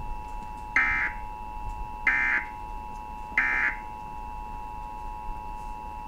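Emergency Alert System test broadcast from a TV: three short, harsh digital data bursts, about a second and a half apart, over a faint steady tone. The bursts are the end-of-message code that closes an EAS alert.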